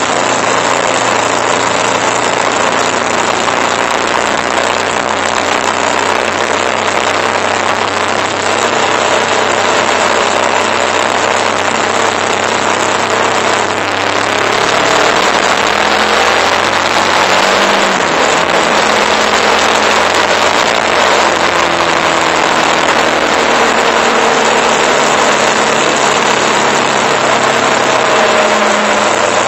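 Motorcycle engine running on the move, heard under heavy wind rush on the bike-mounted microphone. About halfway through the engine note drops briefly, then climbs again.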